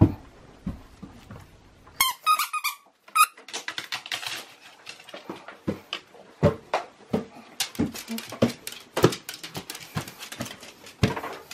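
A squeaky toy squeaks a few times about two seconds in, then a Japanese Chin's claws tick quickly on a wooden floor as it trots about.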